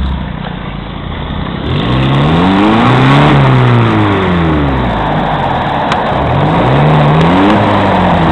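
Off-road vehicle's engine revving hard: the pitch climbs to a peak about three seconds in and falls back, then climbs again near the end.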